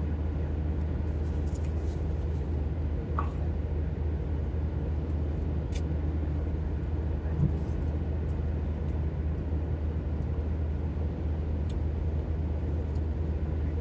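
Steady low road and engine drone heard from inside a moving car's cabin, with a few faint clicks and a brief low thump about halfway through.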